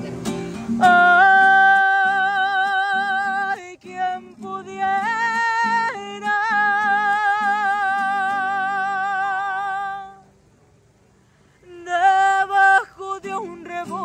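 A woman singing long, drawn-out notes with wide vibrato in ranchera style over a strummed acoustic guitar. Voice and guitar drop out for about a second and a half near the end, then the singing comes back.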